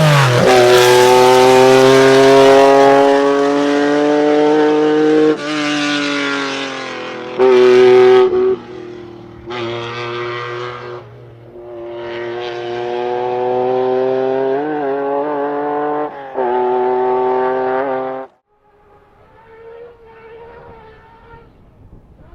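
Lancia Stratos's 2.4-litre Dino V6 running hard at high revs, heard in several short cuts that jump abruptly in loudness, its pitch mostly held with small dips. Near the end the loud engine cuts off suddenly, leaving only a faint engine sound.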